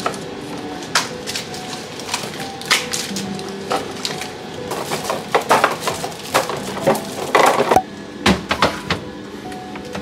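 Plastic-wrapped string cheese sticks being dropped and arranged in a clear plastic bin: crinkling wrappers and sharp clicks of plastic on plastic, busiest from about five to eight seconds in, over soft background music.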